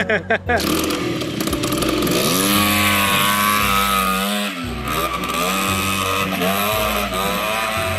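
Yamaha Jog scooter engine revving as the scooter pulls away, its pitch rising and falling with the throttle, starting about half a second in.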